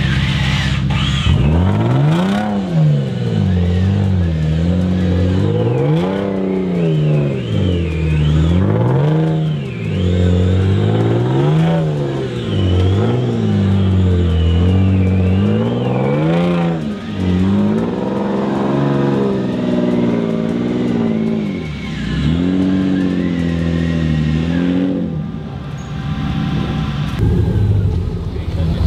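Competition 4x4 truck's engine revving up and down over and over, about a dozen times at roughly two-second intervals, under load on a steep rocky climb. The revving stops near the end.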